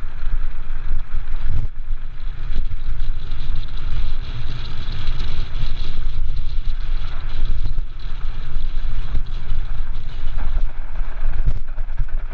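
Mountain cart rolling fast downhill over a gravel track: a loud, continuous, uneven rumble from the wheels and frame, mixed with wind buffeting the microphone, all muffled by a waterproof camera housing.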